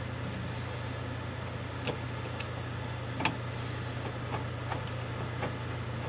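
A few light metallic clicks and taps as a video card is handled into the slot and bracket of a metal PC case, the loudest about three seconds in, over a steady low hum.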